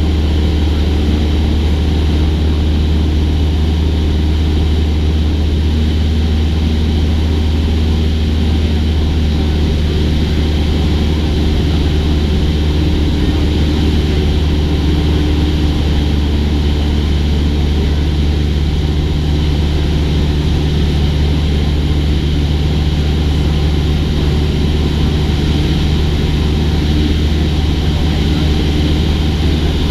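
Cessna 172's piston engine and propeller droning steadily in level flight, a constant low hum with no change in pitch.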